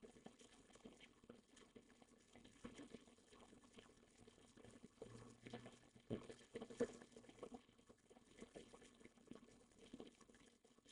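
Near silence, with faint scattered small clicks and taps, a little busier around the middle.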